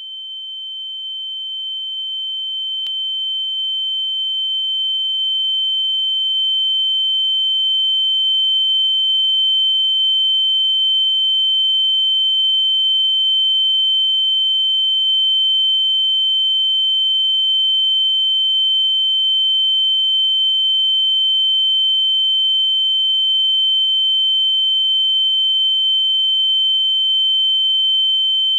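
Ear-ringing (tinnitus) sound effect: a steady, high-pitched electronic tone that swells in over the first several seconds, then holds level.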